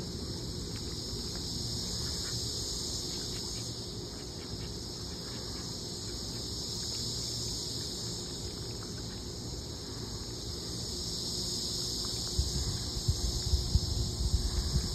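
Steady high-pitched drone of insects, unchanging throughout, over a low outdoor rumble. A run of low bumps comes in the last few seconds.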